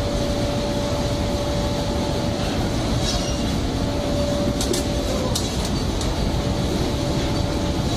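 Steady low rumble of a fishing ship's engines and machinery with a steady hum over it, and a couple of light clicks about five seconds in.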